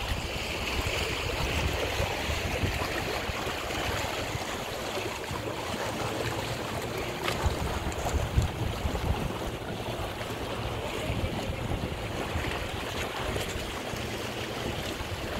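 Small lake waves lapping and washing among shoreline boulders, with gusty wind buffeting the microphone.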